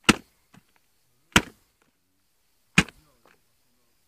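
Sharp wet slaps about once every second and a half, three loud ones, each followed by a fainter one: a sticky mass of bird lime being kneaded by hand and slapped down into a basin of water.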